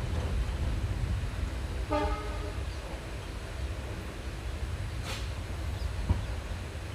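Steady low rumble of a passenger train running, heard from on board, with a brief horn toot about two seconds in. A short hiss comes near five seconds and a sharp thump near six.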